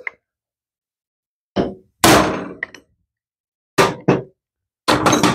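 Hammer blows on a socket driving a loose valve seat down into a Briggs & Stratton overhead-valve cylinder head. About six sharp metallic blows with brief ringing, in uneven groups, starting about a second and a half in; the blow about two seconds in is the loudest.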